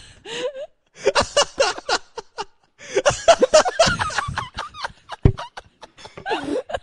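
People laughing hard in repeated fits of snickering and giggling, with short pauses between.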